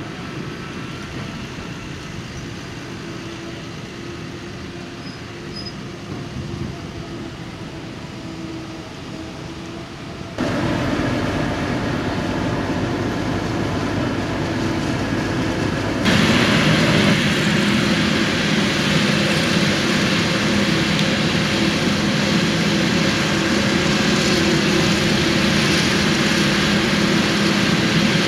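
Farm machinery running steadily: a Claas tractor's engine at first, then two abrupt jumps to louder machine noise about ten and sixteen seconds in. It ends with a Claas Jaguar 970 forage harvester at work chopping maize.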